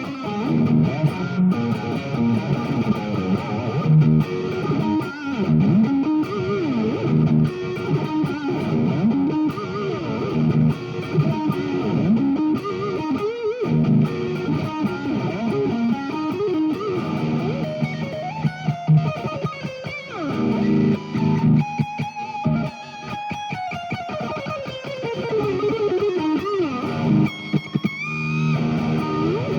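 Fernandes TEJ-70 Telecaster-style electric guitar played through an amplifier, picking single-note lines with string bends. Near the end a held note gives way to a long downward slide in pitch.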